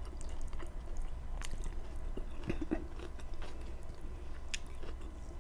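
Close-miked chewing of fatty pork in kare-kare, with scattered wet mouth clicks.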